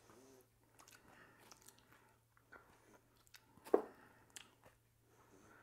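Cooked turkey meat being torn apart by hand and dropped onto flatbreads: faint soft tearing and rustling with scattered small clicks, and one sharper knock a little before four seconds in.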